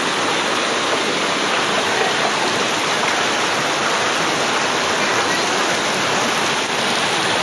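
Fast, turbulent floodwater rushing past: a steady, loud, unbroken rush of flowing water.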